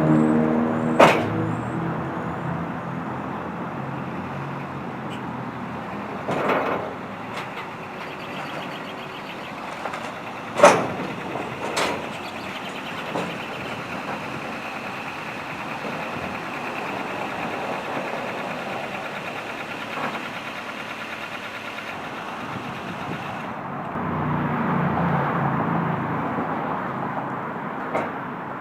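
A vehicle engine running, with several sharp clunks about one, six, ten and twelve seconds in, and a rise in engine pitch and level near the end.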